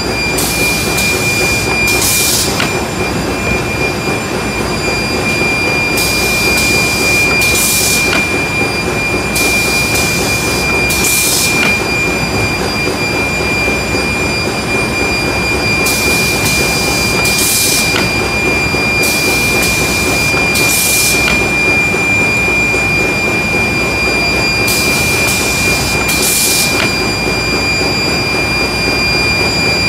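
Baby diaper production machine running steadily: a constant loud mechanical din with a high, steady whine, broken every few seconds by short hissing bursts that mostly come in pairs.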